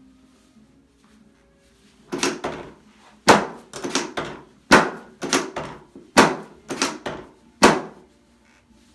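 Sharp wooden-sounding knocks from a chiropractic adjustment of the pelvis on a treatment table, about a dozen over six seconds with the loudest roughly every second and a half, each with a short rattle. The pelvis is being adjusted because of a misalignment still left there.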